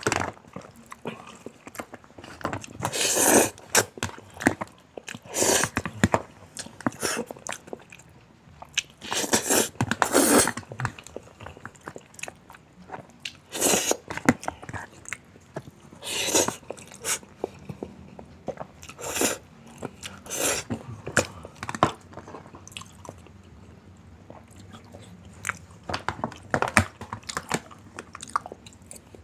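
Close-miked eating: a person chewing and biting mouthfuls of spaghetti and leftover bits of fried chicken, in irregular loud bursts, with a metal fork clicking and scraping in a plastic food tray.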